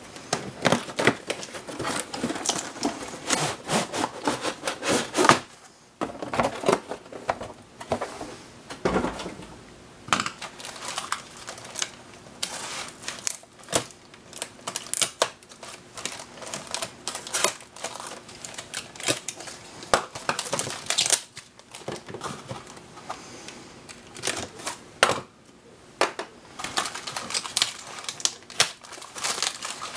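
Cardboard packaging being opened and handled: irregular scraping, rustling and clicking as the box tray is pulled out and the hard plastic blaster parts are worked free of their cardboard tabs.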